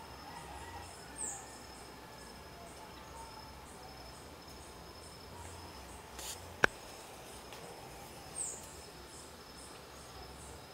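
Outdoor insects chirping in a steady high pulse about twice a second, over a faint steady high whine. Two short falling chirps sound about a second in and again past the middle, and a single sharp click comes about two-thirds of the way through.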